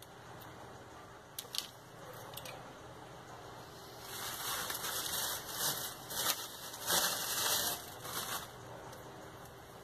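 Scissors snipping soft modelling paste make a few small sharp clicks. Then from about four seconds in come several seconds of scratchy rustling and rubbing as the pieces are handled.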